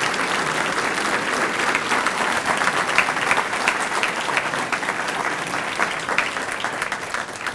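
Audience applauding, dense steady clapping that tapers off near the end.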